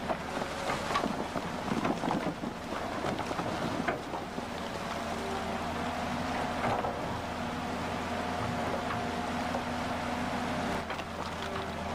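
A hydraulic JCB excavator's engine running while its steel bucket shoves stones about in shallow river water, with water rushing over the rocks and scattered knocks of stone through it.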